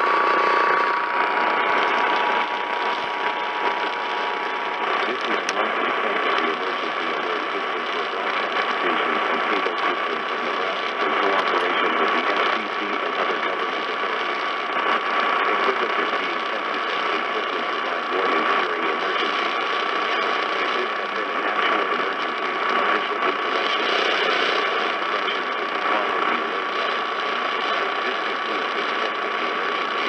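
Crackly static and noise from a weak AM broadcast station at 1110 kHz coming through a portable radio's speaker, with a steady whistle running through it. A fainter pair of steady tones fades out about five seconds in.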